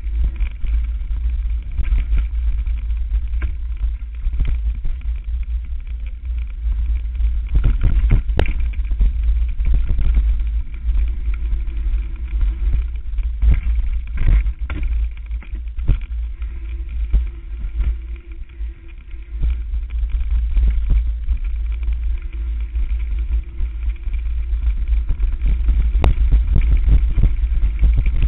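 Mountain bike ridden fast down a rough forest trail: heavy wind rumble on the microphone, with frequent knocks and rattles as the bike hits roots and bumps. It eases briefly past the middle, then builds again.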